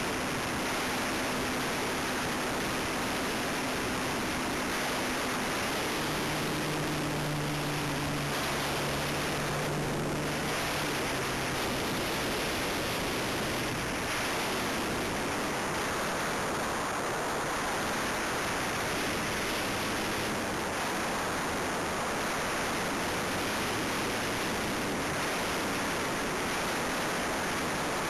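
Steady rushing hiss of air streaming past the microphone on board a Super Cub in flight, with faint low hums during the first ten seconds or so.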